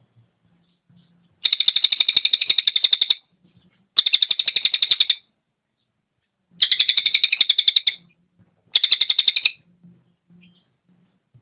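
Songbird giving four rapid chattering trills, about ten quick even notes a second, each trill one to two seconds long with short pauses between.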